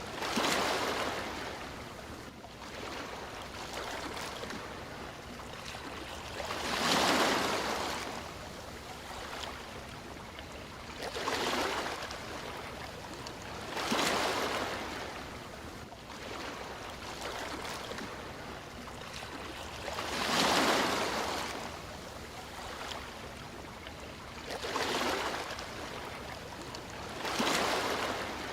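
Sea waves breaking and washing in: about seven swells of surf a few seconds apart over a steady wash of water noise.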